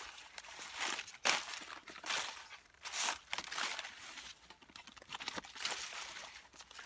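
Stiff fan-palm fronds rustling and crackling in short, uneven bursts as a hand pushes and parts them.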